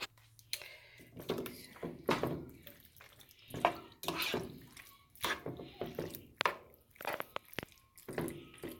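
Wet sloshing of cream and Alfredo sauce in irregular strokes, about one or two a second, with a few sharp knocks from the jar or utensil near the end.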